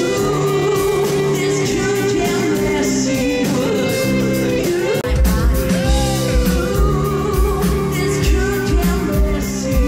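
Live rock band with a female singer, electric bass and guitars. The first half is recorded through a Canon DM-100 camcorder microphone with automatic gain control and is thin in the bass. About halfway it switches to a Shure MV88, with a full, pulsing low end.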